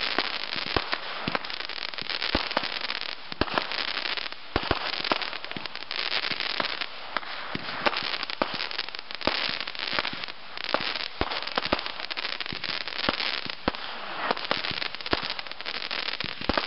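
Fireworks going off without a break: a dense crackle from glittering aerial bursts, with sharp bangs many times throughout.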